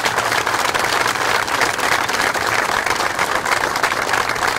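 Crowd applauding: many people clapping in a dense, steady patter.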